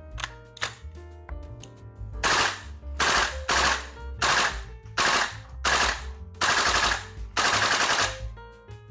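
VFC M16A2 Carbine (Colt M727) gas blowback airsoft rifle firing a string of about eight short full-auto bursts in quick succession, starting about two seconds in. Background music plays underneath.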